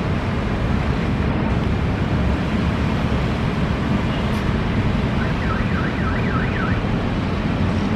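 Steady, even rumble and rush of a military turboprop transport aircraft's engines during its landing roll-out, heard from a distance.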